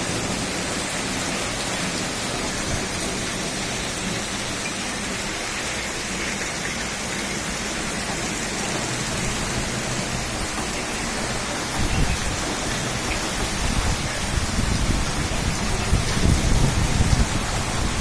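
Steady hiss of heavy rain. From about two-thirds of the way in, irregular low gusts rumble over it, growing louder toward the end, like wind buffeting the microphone.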